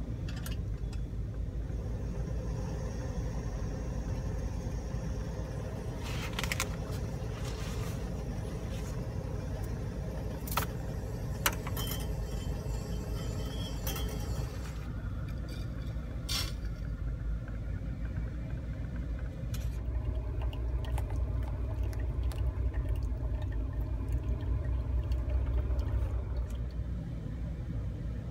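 A steady low rumble under light metallic clinks and taps as a kettle, a wire coffee dripper and a stainless steel mug are handled while making pour-over coffee.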